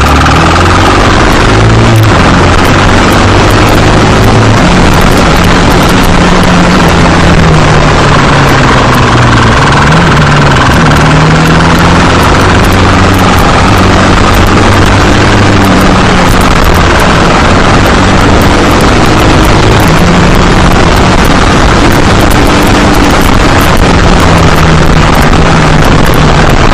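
Motorcycle engine running hard at speed, its note rising and falling again and again, with heavy wind rushing over the microphone. Loud throughout.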